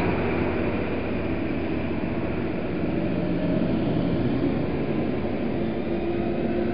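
Diesel engines of modern New Holland tractors running steadily as they drive past in a line: a continuous low rumble, with an engine tone rising slightly near the end as one tractor comes close.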